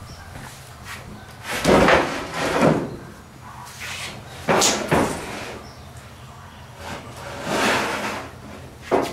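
MDF boards being handled and set in place: several scraping slides and thuds, with sharp knocks about five seconds in and at the end.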